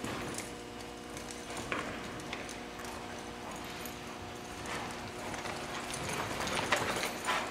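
Hoofbeats on soft arena sand from a three-year-old quarter horse gelding working cattle, with the cattle's feet shuffling, over a steady low hum. The loudest thuds come near the end.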